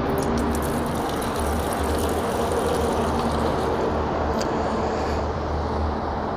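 Gasoline poured from a plastic measuring cup into a plastic jar fuel tank, a light trickle over a steady low rumble, with a faint tap about four and a half seconds in.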